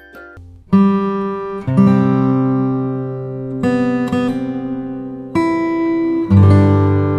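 Background music: acoustic guitar strumming chords, each chord struck and left to ring, a new one about every second or two.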